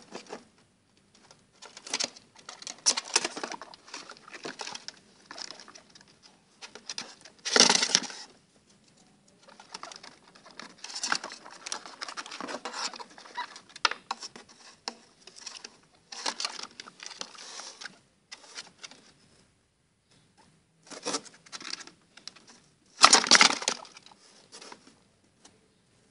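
Baby guinea pigs moving about in a cardboard box, making irregular scratchy rustling in bursts, with two louder bursts about 8 seconds and 23 seconds in.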